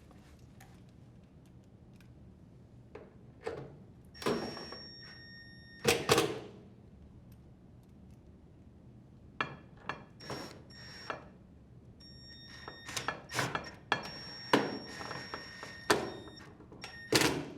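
LG dryer's door being handled after refitting, a series of knocks and thunks with short metallic ringing from the cabinet panels. The loudest thunks come about six seconds in and near the end.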